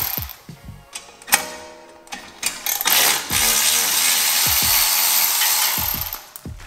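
Cordless electric ratchet backing out the 10 mm bolts of a brake dust shield on a front wheel hub: a short run about a second in, then a steady run of about three and a half seconds from about three seconds in, with sharp clicks before and after.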